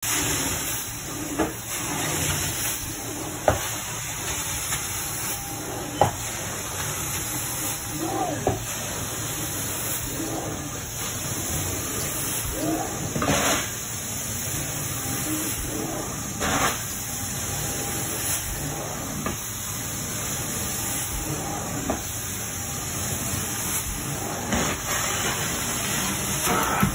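Carpet extraction wand working a dirty carpet: a steady hiss of suction and spray as the wand is pulled across the pile, with a few sharp clicks and brief louder swells of hiss.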